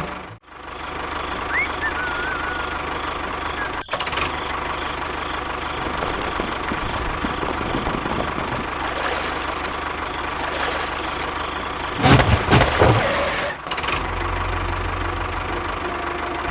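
A small engine running steadily, with a louder noisy burst about twelve seconds in that lasts over a second.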